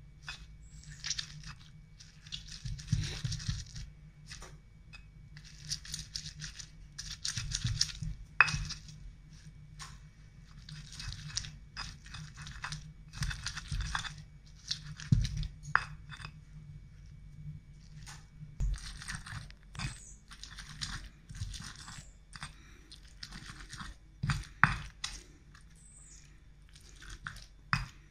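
Fresh red chillies and tomato being crushed and ground into sambal with a stone pestle in a stone mortar (ulekan and cobek). Wet crunching and grinding comes in bursts every second or two, with a few sharp knocks of stone on stone.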